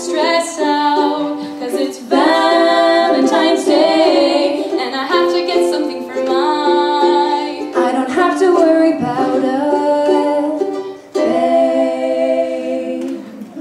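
Female voices singing to a ukulele accompaniment, many notes held, with two short breaks between phrases.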